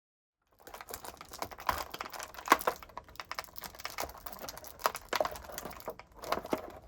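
Toy packaging being handled and pulled open by hand: a run of irregular clicks, taps and crinkles, with one sharper snap about two and a half seconds in.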